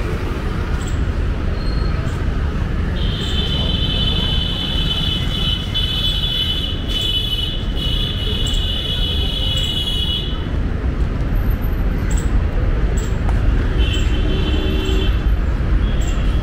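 City street traffic: a steady low rumble of passing vehicles. A long, steady high-pitched tone sounds from about three seconds in for some seven seconds, and shorter ones come near the end.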